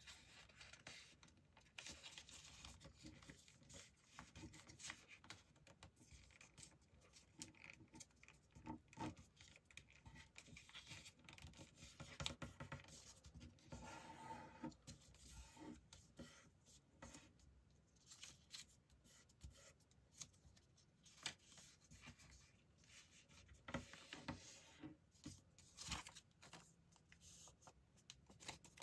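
Faint rustling and crinkling of a sheet of printer paper being folded and creased by hand, in many short irregular scrapes and crackles.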